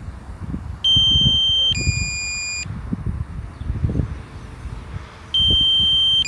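DJI Mini 2 low-battery alarm: a two-note electronic alert, a higher tone then a lower one, each about a second long, sounding twice about four and a half seconds apart, over a low rumble.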